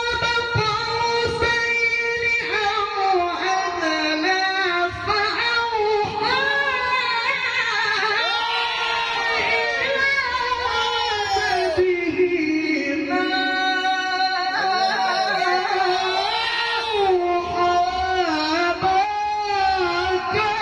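A male qari's melodic Qur'an recitation (tilawah) into a microphone. One voice sings long, ornamented held notes that glide and waver up and down in pitch, with only short breaks between phrases.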